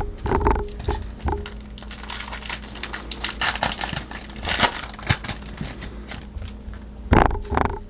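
Foil wrapper of a trading-card pack crinkling and tearing as it is opened, a dense run of crackles in the middle.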